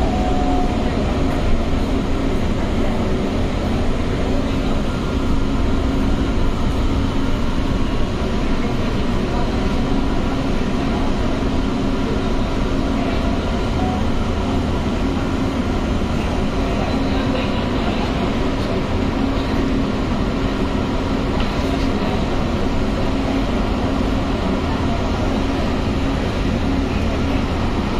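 Metro train running at steady speed on an elevated line, heard from inside the carriage: an even rumble of wheels on rail with a constant low hum.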